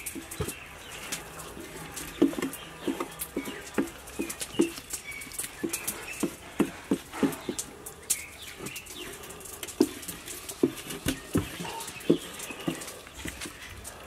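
Wet slaps and squelches of hands working herb-butter paste under the skin of a raw whole bird in a steel basin: soft irregular taps, about two or three a second. Small birds chirp faintly in the background.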